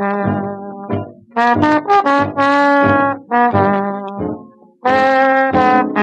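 Brass instrumental music led by trombones and trumpets, playing a tune in short phrases of held notes with brief breaks between them.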